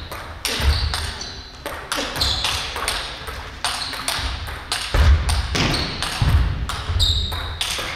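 Table tennis rally: the celluloid ball clicks sharply off paddles and the table in quick succession, with thumps of players' feet on the wooden floor and short squeaks of their shoes.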